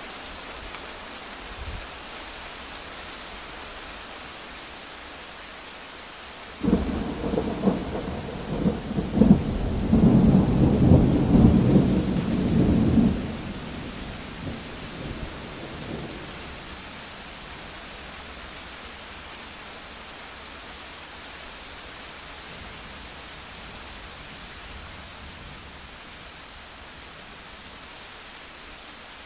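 Steady rain hiss, broken about seven seconds in by a sudden loud clap of thunder that rumbles for about six seconds before fading away.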